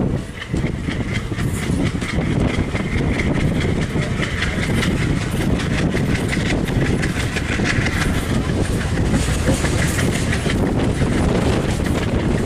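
Passenger train coach running along the rails, heard from its open door: a steady rumble with rapid clicking of the wheels over the track.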